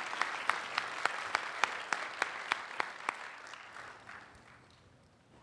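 Audience applauding, with one close pair of hands clapping steadily about three times a second above the crowd; the applause dies away about four seconds in.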